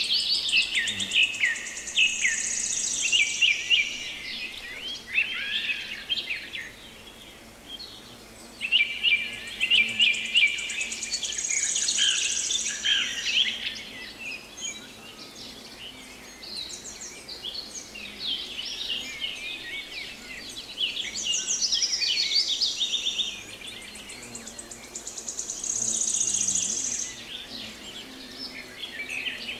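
Songbirds singing in a lively chorus, in bursts of several seconds with short lulls between. High buzzy trills recur among the songs.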